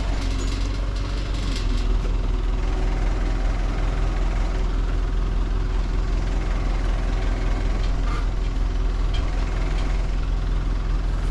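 Heavy vehicle engine running steadily at idle, with some faint rattling in the first couple of seconds.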